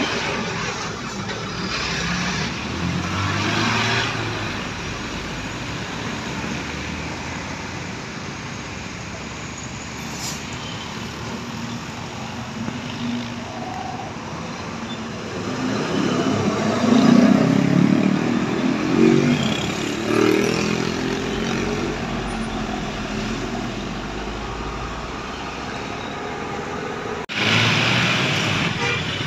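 Roadside traffic with buses and other vehicles driving past. The loudest passing comes about halfway through, with low shifting engine tones. The sound changes abruptly near the end.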